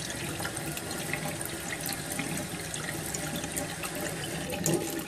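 Kitchen faucet running steadily into a stainless steel sink as a glass is filled from it.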